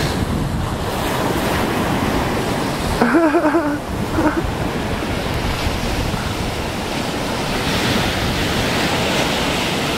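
Sea surf washing onto a beach, a steady rush of breaking waves, with wind buffeting the microphone. A person's voice sounds briefly about three seconds in.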